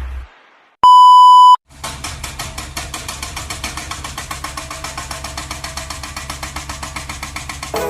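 A single loud, steady electronic beep lasting under a second, then a Kobelco SK200 excavator's diesel engine idling with a quick, even pulse.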